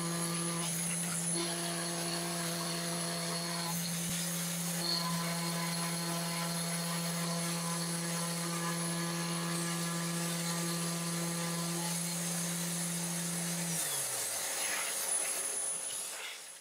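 Sainsmart Genmitsu PROVerXL 4030 V2 desktop CNC router milling a wooden board with an end mill, a dust-extraction hose running beside the cut: a steady motor hum with a high whine over a hiss. About 14 seconds in, the hum falls in pitch as a motor winds down.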